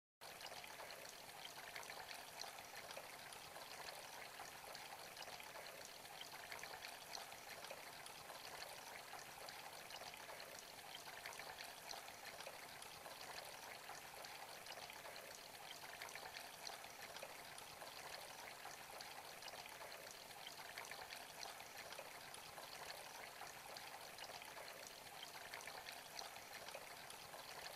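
Kelkay Bunny Bubbling Brook garden water feature running: thin streams of water trickle down its rock tiers and splash into the small pools below, a steady, even trickling.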